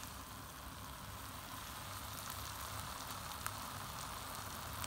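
Eggs sizzling faintly as they cook in the electrically heated wells of a four-hole egg roll maker: a steady hiss with a few small crackles.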